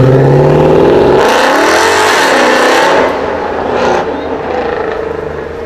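A modified car's engine revving hard as the car accelerates, the exhaust growing loud and rasping about a second in. It drops back about three seconds in and fades as the car pulls away.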